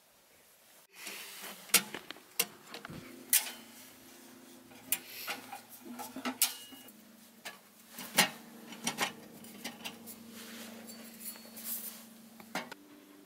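Metal clanks and clinks of a Petromax Loki 2 steel tent stove being assembled, its legs unfolded and its stovepipe sections pulled out and fitted together. Irregular sharp knocks begin about a second in, some leaving a brief metallic ring.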